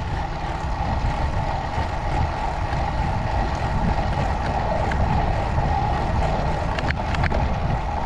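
Steady wind rush and rumble on the microphone of a bicycle rolling along a paved trail, with a couple of faint clicks about seven seconds in.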